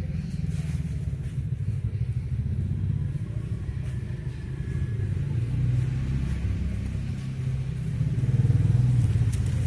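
Domestic cat purring close to the microphone, a steady low rumble that swells louder near the end.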